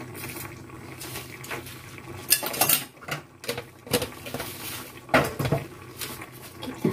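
A spoon and cookware clinking and knocking: several separate sharp knocks between about two and five and a half seconds in, over a low steady hum.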